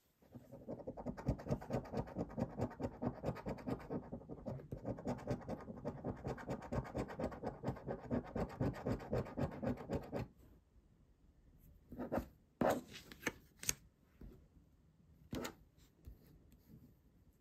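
A euro coin scratching the coating off a Banco scratch card in rapid back-and-forth strokes, about six a second, for some ten seconds. The scratching stops, followed by a few brief, separate rustles and taps.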